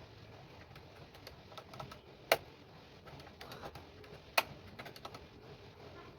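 Scattered light clicks and taps of small parts being handled, with two sharp, loud clicks about two seconds apart.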